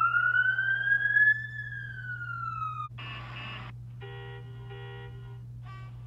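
A siren sounds one wail, rising and then falling in pitch over about three seconds, followed by a short harsh blast and then two horn toots.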